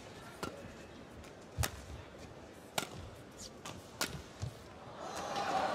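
Badminton rally: rackets striking the shuttlecock about every second and a quarter, with shoes squeaking on the court between shots. Near the end the arena crowd's noise swells.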